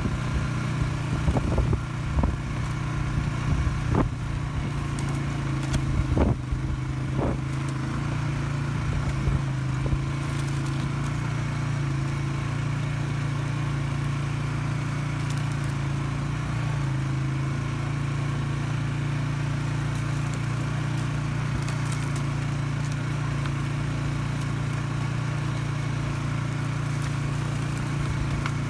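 Polaris Sportsman 570 ATV's single-cylinder engine running steadily at low trail speed. Several sharp knocks in the first ten seconds or so.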